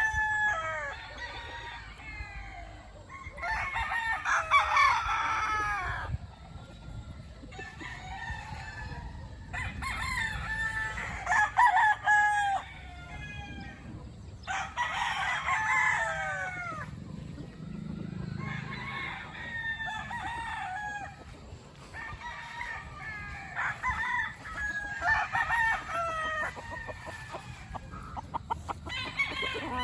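Several young gamefowl roosters (stags) crowing one after another, their crows overlapping, with a new crow every two or three seconds.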